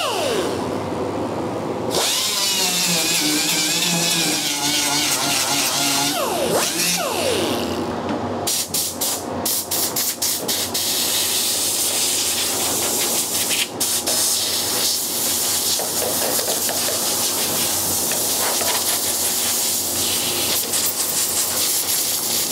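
Small rotary sander with a 60-grit disc roughing up a polyester (fibreglass) bonnet to key it for laminating. It makes a whine that dips and rises with the tool's speed for the first several seconds, then a steady hiss broken by many short stops and restarts.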